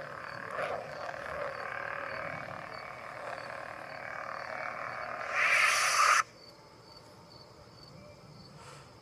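Saberforge Arbiter lightsaber sound board humming, with swells as the blade is swung, then a louder power-down sound about five seconds in that cuts off abruptly as the blade shuts off. Crickets chirp faintly throughout.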